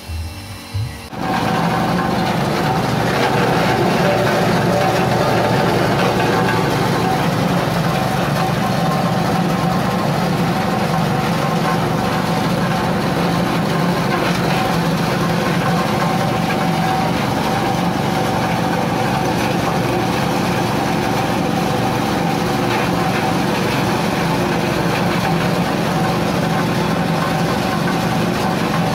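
Coconut-husk shredder (cocopeat/cocofiber machine) driven by a small single-cylinder petrol engine, starting up about a second in and then running steadily at an even pitch while husks are fed in and ground into fiber.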